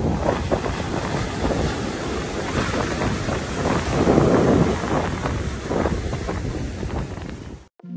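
Ocean surf washing onto a beach, with wind buffeting the microphone. The sound swells loudest about halfway through and cuts off suddenly just before the end.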